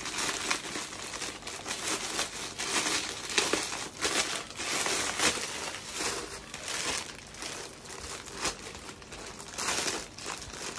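Plastic and metallic foil gift wrapping crinkling and rustling as it is handled and pulled open by hand, an irregular run of crackles throughout.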